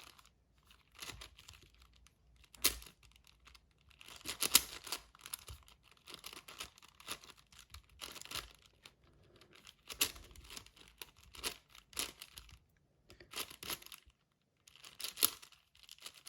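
Layers of a plastic 6x6 Rubik's cube being turned by hand: irregular bursts of clicking, scraping turns with short pauses between them.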